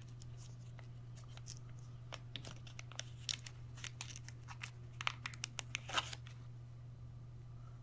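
Small clear plastic zip bag crinkling and rustling in quick irregular crackles as it is worked open and a plastic ring is slid out; the crinkling stops about six seconds in, leaving a steady low hum.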